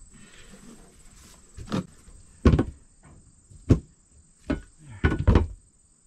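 A run of about six heavy thuds and knocks, irregularly spaced, as a plastic outdoor-unit equipment pad is handled and knocked into place on bare dirt; the loudest come about two and a half seconds in and near the end.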